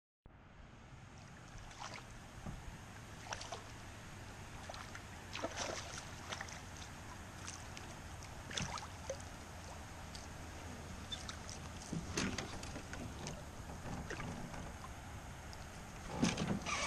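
A small bass being played and splashing at the surface beside a canoe: scattered short splashes and light clicks over a faint, steady low hum. The handling noises grow louder near the end as the fish is lifted out.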